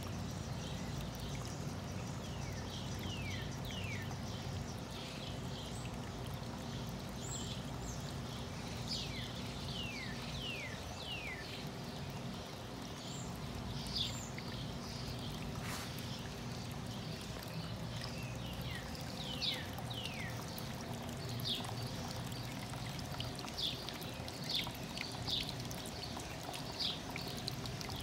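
Water trickling and splashing steadily from a small homemade rock waterfall into a preformed pond basin. Short, high, falling bird chirps are scattered throughout, more of them in the second half.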